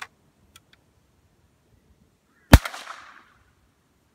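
A single rifle shot from a CBC Model 151 single-shot break-action rifle in .32-20, fired with a light hand-loaded round: one sharp crack about two and a half seconds in, with a short echo dying away. A few faint clicks near the start.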